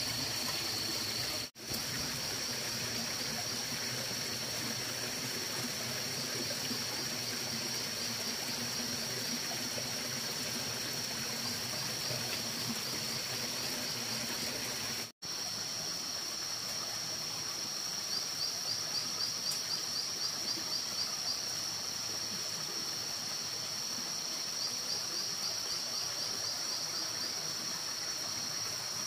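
Water trickling steadily, under a steady high insect buzz with bursts of rapid chirping trills in the second half. The sound cuts out completely for an instant twice, once near the start and once about halfway.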